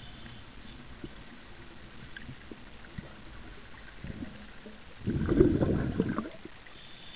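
Waterfall plunging into a pool, heard underwater: a steady low churning noise, with a loud burst about five seconds in that lasts just over a second.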